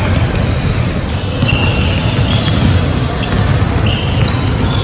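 Many basketballs dribbled at once on a hardwood gym floor, a continuous jumble of overlapping bounces with no single rhythm. Short high squeaks of sneakers cut in now and then.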